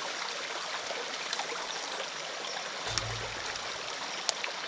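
Steady rush of running water, with a few light clicks and a brief low thump about three seconds in.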